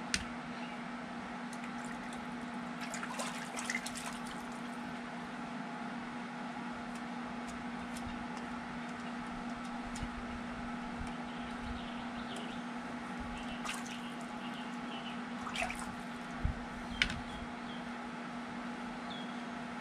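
Scattered clicks and taps of tongs and fish bones on a metal baking tray, the loudest just after the start and twice near the end, over a steady background hum with one constant tone.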